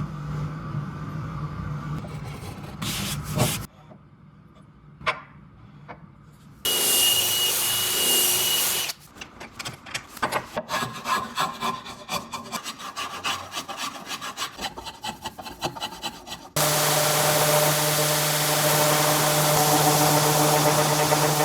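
Woodworking sounds on wood. A hand tool works the wood in rapid back-and-forth strokes, several a second, for several seconds. Before it comes a short burst of a power tool with a high whine, and after it a power tool running steadily.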